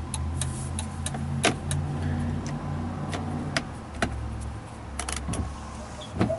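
Turn signal flasher clicking on and off in a steady rhythm in a 2004 Ford F550, over a steady low hum. The signals are now flashing properly after the multifunction switch was replaced.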